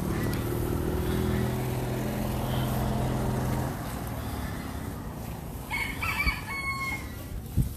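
A rooster crowing near the end, over a steady low drone that stops about three and a half seconds in.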